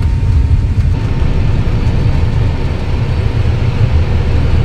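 Airbus A320neo at takeoff power, heard from inside the cockpit during the takeoff run: a loud, steady low rumble of engines and runway with no break.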